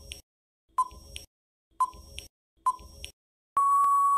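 Quiz countdown timer sound effect: a short electronic tick-beep about once a second, four times, then one long steady beep near the end signalling that time is up.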